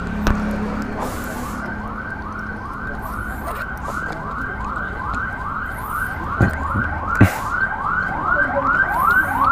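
Electronic siren yelping: a short rising tone repeated about three times a second, steady throughout, with a couple of brief knocks a little past the middle.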